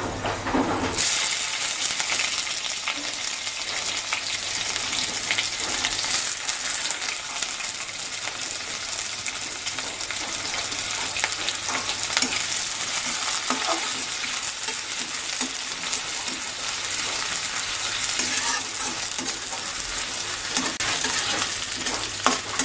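Sliced onions sizzling in hot mustard oil in a kadai. The sizzle steps up about a second in and then holds steady, with a spatula stirring and scraping against the pan.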